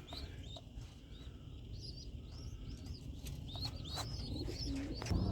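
Young pigeons in the loft cheeping: a steady run of short, high chirps, with a few light knocks and a low coo near the end.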